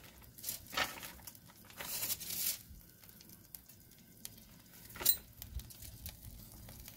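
Burgers faintly sizzling on a hot griddle, with scattered soft crackles and rustles as the buns are pressed and handled; a sharp click about five seconds in.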